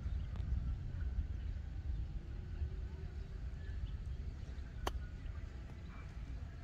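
Golf iron striking the ball on a short chip shot: a single crisp click about five seconds in. A steady low wind rumble on the microphone runs underneath.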